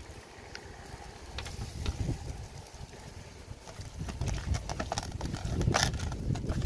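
Hands rubbing seasoning into chunks of raw fish on a woven bamboo tray: irregular wet slaps, crackles and soft knocks against the tray, busier in the second half.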